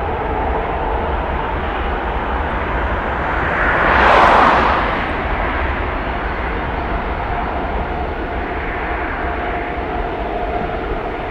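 Airbus A330-300 airliner's Rolls-Royce Trent 700 jet engines at takeoff power as it runs down the runway, growing loudest about four seconds in as it passes, then settling into a steady roar with a faint whine as it draws away.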